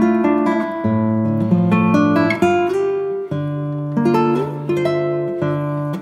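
Background music: acoustic guitar playing picked notes and chords.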